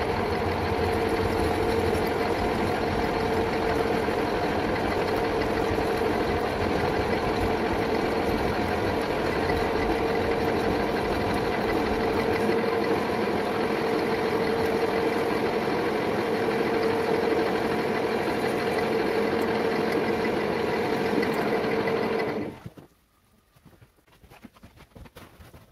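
Metal lathe running steadily, its spindle turning a workpiece between centers with a lathe dog, a steady machine noise with a constant whine. About 22 seconds in it stops quickly, leaving a few faint clicks.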